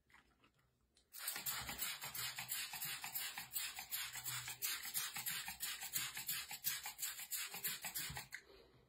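A plastic trigger spray bottle squeezed over and over in quick succession, each pump giving a short hiss of mist. It starts about a second in and stops shortly before the end.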